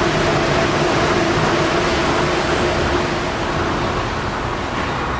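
Chongqing elevated monorail train running past overhead: a steady rushing noise with a hum that fades out about four seconds in as the train moves away.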